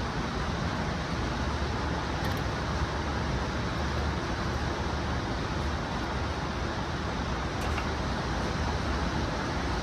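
Steady low rumble with an even hiss above it, unchanging throughout, with no gunshots.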